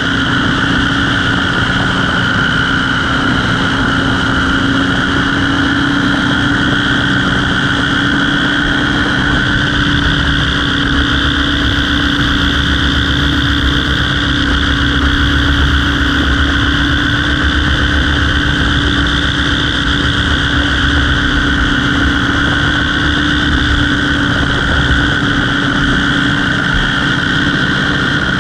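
An engine running steadily at constant speed: a continuous, even drone with a fixed pitch and no change in speed.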